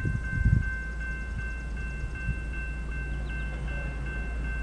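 Railroad crossing warning bell starting to ring as the crossing signals activate, striking evenly about three times a second. This is the warning that a train is approaching the crossing.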